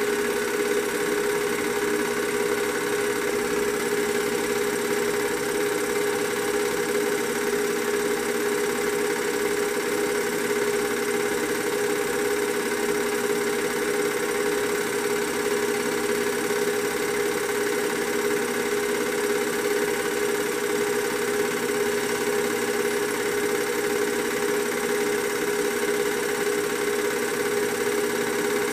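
A film projector running steadily: a constant motor hum with a fixed whine, unchanged through the whole stretch of film.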